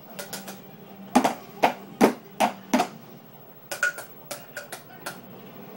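Sharp taps in quick runs of about two to three a second, the loudest a run of five about a second in, over a steady low hum.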